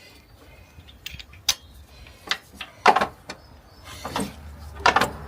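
Scattered sharp metallic clicks and knocks, about one every half second to a second, of hand tools and small metal parts being handled.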